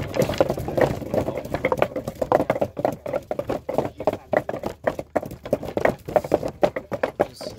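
Wooden pestle pounding in a large mortar, mashing sugar cane, wormwood and sour tamarind into elephant food: a steady run of dull thuds, a few strokes a second.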